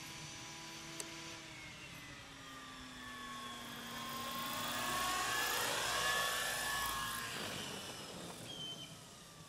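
Gaui Hurricane 425 model helicopter coming down in an autorotation, its rotor blades whirring with pitches that glide up and down. The sound grows louder to a peak as it flares and touches down, then fades as the rotor winds down. A single sharp click about a second in.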